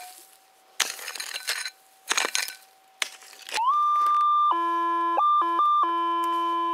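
A pick chopping and scraping into stony soil a few times, over the faint steady hum of a metal detector's threshold tone. About three and a half seconds in, with the coil held over the hole, the detector sounds a loud steady tone that rises in pitch and then jumps between several pitches: the signal of a metal target still in the ground.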